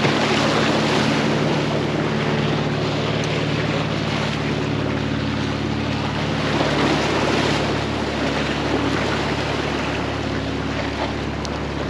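Waves washing and splashing over the boulders of a rock jetty, with wind buffeting the microphone. Underneath runs a low steady engine drone, which thins out about halfway through.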